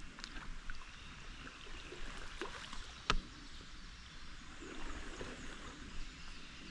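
Quiet water sounds around a kayak on a creek: gentle trickling and lapping, with scattered small knocks and one sharp click about three seconds in.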